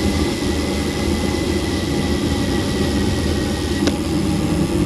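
Wind rushing over a bike-mounted action camera's microphone, with road noise from a bicycle coasting downhill and a faint steady high whine; a single sharp click about four seconds in.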